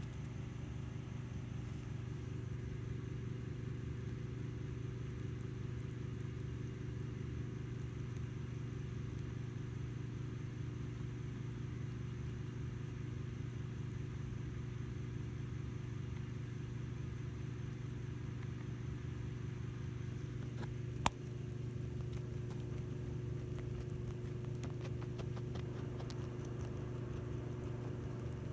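Steady low machine hum, with one sharp click about 21 seconds in.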